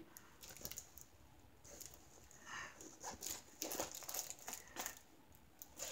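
Faint, scattered crinkling of a clear plastic sleeve around a diamond painting canvas as it is handled and laid flat.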